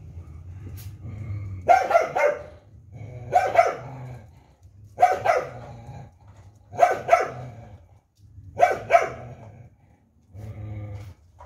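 Dog barking in double barks, five pairs in a row, about one pair every second and a half to two seconds.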